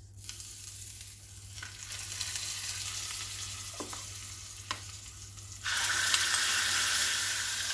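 Hot coconut-oil tempering of mustard seeds, urad dal, curry leaves and dried red chillies sizzling as it is poured onto coconut chutney. Two light clicks of a spoon against the pan come midway. The sizzling grows much louder near six seconds in as the pan is scraped out onto the chutney.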